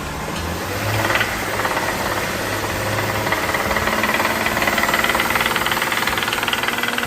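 BMW 535's straight-six engine running with a loud, rapid metallic rod knock that grows louder as the throttle is pressed, about a second in and again midway. The noise is a connecting-rod knock: the sixth cylinder's rod bearing has seized onto a badly scored crankshaft and overheated.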